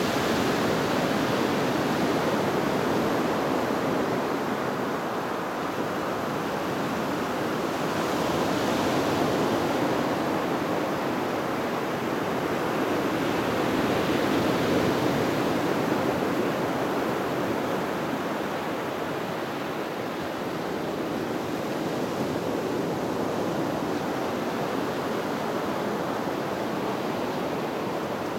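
Ocean surf breaking and washing up a sandy beach: a continuous rushing wash that swells and eases slowly as each wave comes in.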